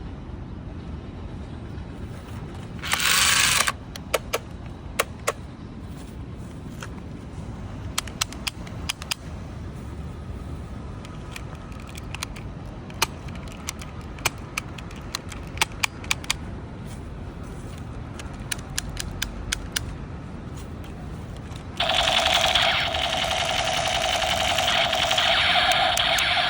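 Many sharp, separate clicks and snaps from a Nerf toy blaster being handled and worked, with a short loud hissing burst about three seconds in. A steady loud buzzing drone starts about 22 seconds in and runs for roughly five seconds.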